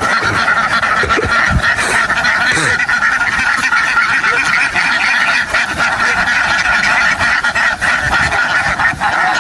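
A large flock of domestic ducks quacking all at once in a dense, steady chorus of overlapping calls.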